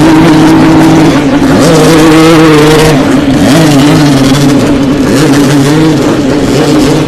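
Yamaha RX-King's single-cylinder two-stroke engine revved hard and held at high revs, very loud, with the revs dropping briefly about a second in and again around three seconds in before climbing back.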